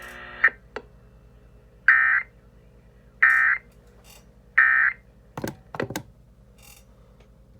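Emergency Alert System end-of-message data bursts: three short, harsh warbling tone bursts about 1.3 seconds apart, closing the severe thunderstorm warning broadcast. A couple of sharp clicks follow a little later.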